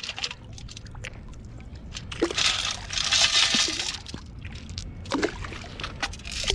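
Water sloshing and pouring, in two swells, with a few small clicks: a sand scoop being sifted in shallow water while digging a metal detector target.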